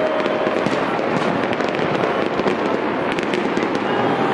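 Aerial fireworks display going off: a steady, dense crackle of many small pops from bursting shells.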